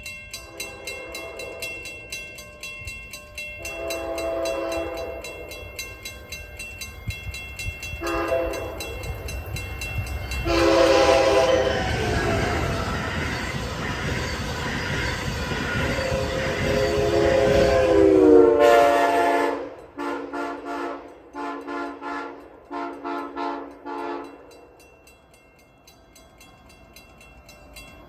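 An Amtrak Northeast Corridor train's Nathan K5LA five-chime air horn sounds a few blasts as it approaches. Then comes one long blast over the loud rush of the train passing, and the horn chord drops in pitch as it goes by. A string of about five short toots follows.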